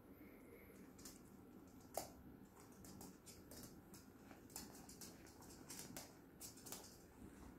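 Faint clicking and pattering of two Yorkshire terriers' claws and paws scrabbling on a hard floor as they play-wrestle, with one sharper knock about two seconds in and a flurry of quick clicks after it.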